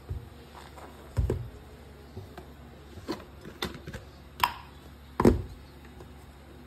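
A handful of short knocks and clicks from kitchen items and the phone being handled at a stone counter. The loudest are two dull thumps, about a second in and about five seconds in.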